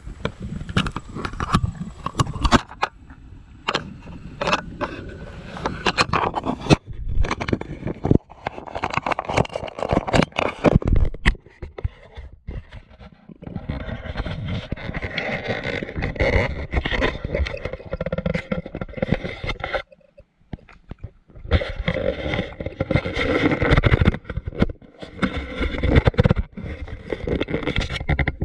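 A hiker's footsteps and movement on a dirt trail: irregular scraping and crunching with scattered knocks, dropping out briefly about two-thirds of the way through.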